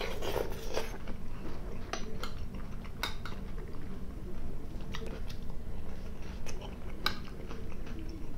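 Close-miked eating: chewing and mouth sounds, with metal cutlery clicking sharply against the plate and bowl a few times.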